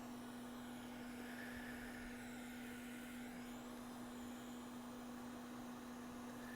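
Hot air rework station blowing during reballing: a steady low hum with an even faint hiss under it.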